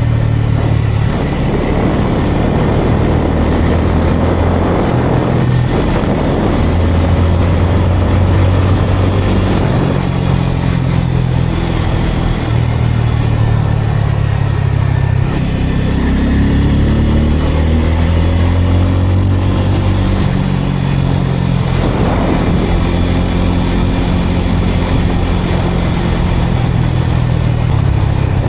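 Bajaj Pulsar N250's single-cylinder engine running under way. Its pitch rises and falls over and over with throttle and gear changes, including a long rise about two-thirds of the way through.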